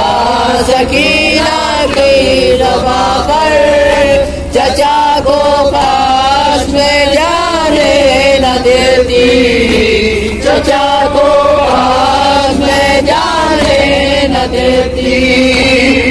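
Two men chanting a nauha, an Urdu lament, into a microphone: a lead voice with a second joining, in long, wavering held lines with only brief breaks.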